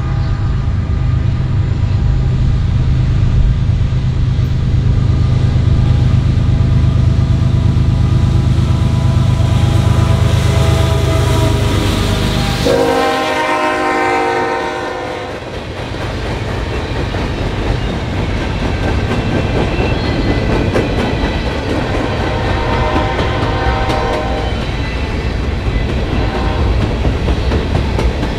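Diesel-hauled train passing close with its horn sounding: the engines' heavy rumble and the horn build up, and about halfway through the horn drops in pitch as the locomotive goes by. After that the railcars roll past with the wheels clattering over the rail joints, and the horn sounds again more faintly.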